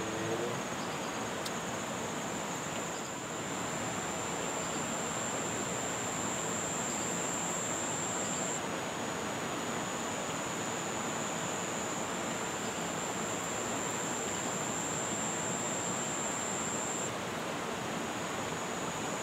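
Steady rush of river water flowing past rocks, with an insect's thin, high, steady buzz on top.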